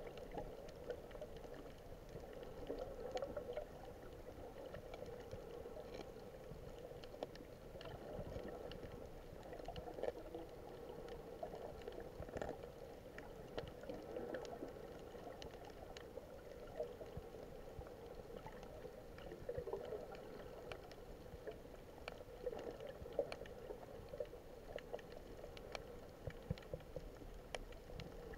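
Muffled underwater ambience picked up by a camera held under water while snorkelling over a coral reef: a low water murmur that swells and fades every few seconds, dotted with faint scattered clicks.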